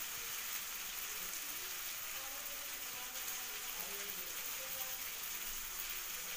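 Steady hiss with faint, indistinct voices underneath.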